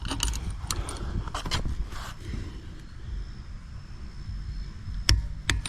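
Click-type torque wrench and metal tools clicking and clinking while nuts are tightened to 100: several sharp clicks in the first two seconds and one more about five seconds in, over a low steady rumble.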